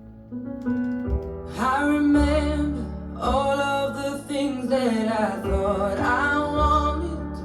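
A slow song playing: a sung melody coming in about one and a half seconds in, over instrumental accompaniment with a low bass beat about once a second.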